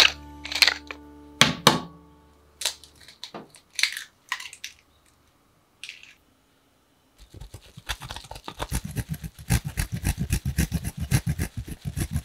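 Background music fading out, then a few sharp taps, then cheese being grated on a metal grater over a bowl: quick rasping strokes, about five a second, starting about seven seconds in.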